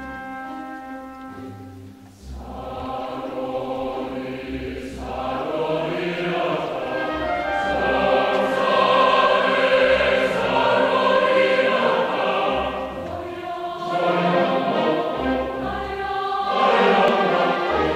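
Background music: a choir singing with orchestral accompaniment, briefly dropping away about two seconds in and then swelling louder.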